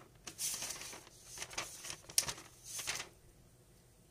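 Faint scratching of a pen writing on a paper worksheet: several short strokes, ending about three seconds in.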